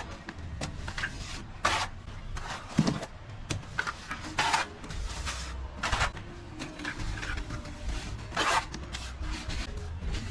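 Plastering trowel scraping and rubbing across a wall in short, irregular strokes, about one every second or two, over a low rumble.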